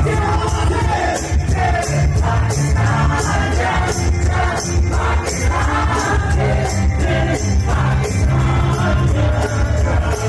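Folk band playing and singing, with a steady bass line under the voices and shaken hand percussion keeping an even beat.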